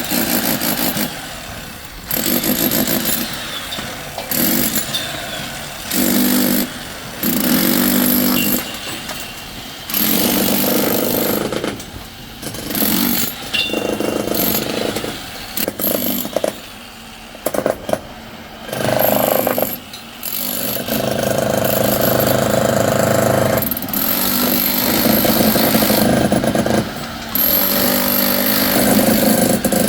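Construction machinery or power tools running in repeated bursts of one to three seconds, starting and stopping, then running more steadily through the second half.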